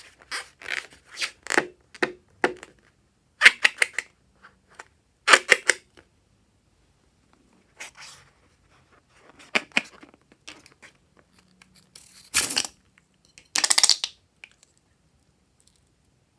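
Slime being squeezed and worked by hand: clusters of sticky crackling clicks and pops, with a gap of a second or more between clusters and two louder, noisier squelches near the end.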